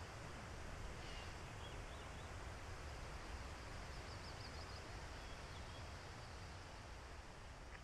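Steady outdoor background hiss with a low rumble on the microphone, and a few faint, high bird chirps, including a short trill about four seconds in.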